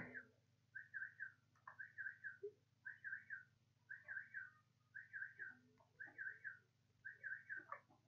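A small bird chirping faintly in the background, in short runs of three or four quick high notes, about one run a second.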